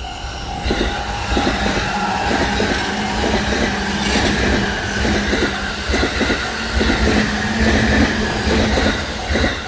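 A Saikyō Line electric train passing close by over a level crossing. Its wheels clatter over the rail joints in irregular groups above a steady low hum. The crossing's warning bell rings at the start and comes through again near the end as the train clears.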